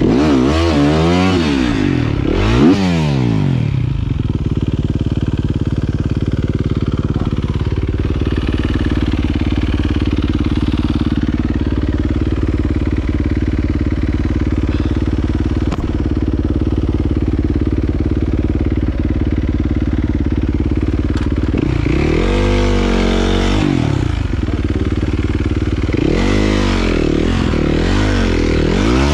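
Yamaha dirt bike engine revving up and down, then holding a steady pitch for a long stretch, then revving up and down again twice near the end.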